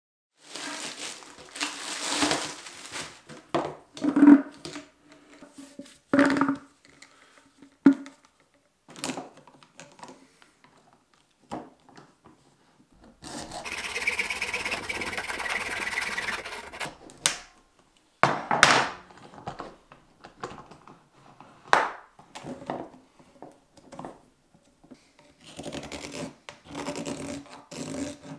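Intermittent knocks and scrapes of a flexible plastic drain hose being handled on a wooden workbench. About halfway through, a hacksaw cuts through the hose's plastic end with about four seconds of steady sawing. Near the end, a knife blade scrapes burrs off the cut plastic fitting.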